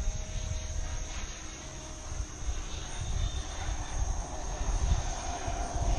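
Radio-controlled model jet flying in on its landing approach, a steady high whine over a low, uneven rumble, growing louder toward the end.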